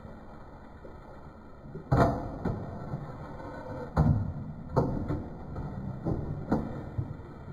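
Steel ladle stirring chicken in an open aluminium pressure cooker pot, scraping through the thick masala and knocking against the metal sides several times, the loudest knocks about two and four seconds in.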